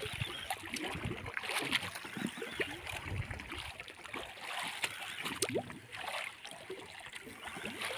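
Sea water lapping and splashing against the hull of a small wooden outrigger boat, with scattered small knocks.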